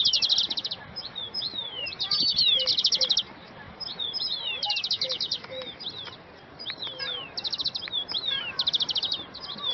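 Small birds chirping and singing: rapid, high trills alternate with quick falling whistled notes, repeating again and again.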